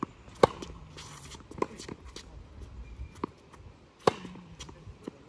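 Tennis rally on a hard court: sharp racket-on-ball strikes, the loudest about half a second in and again about four seconds in, with fainter hits and ball bounces between them.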